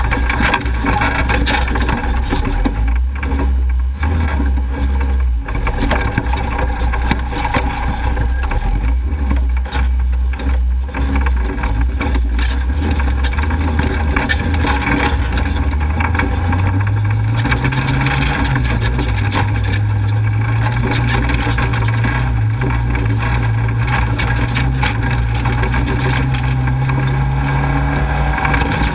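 Off-road race vehicle's engine running hard, heard from a hood-mounted camera, with knocks and rattles from the rough dirt track. About sixteen seconds in, the engine note climbs higher and holds there.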